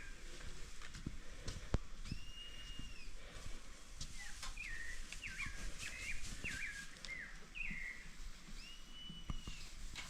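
Birds calling outdoors: repeated clear whistled notes, some single arched whistles and a quick run of short notes in the middle, over faint background noise, with a few sharp clicks.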